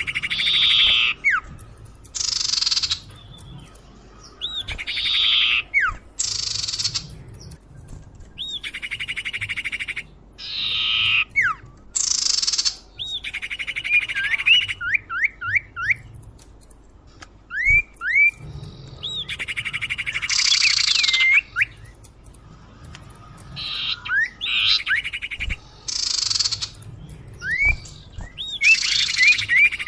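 Common iora (cipoh) lure calls: repeated harsh, buzzy rasping notes of about half a second to a second each. Between them come short whistled slurs and quick runs of rising whistled notes.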